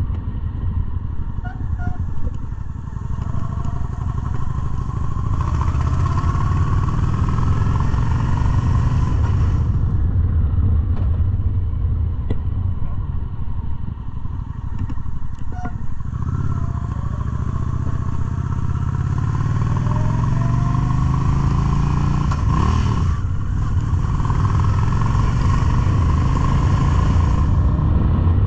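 Cruiser motorcycle engine under way, accelerating twice with its pitch climbing, and easing off in between. Wind rushes over the microphone as speed builds, and there is a brief louder whoosh a little after the middle of the second pull.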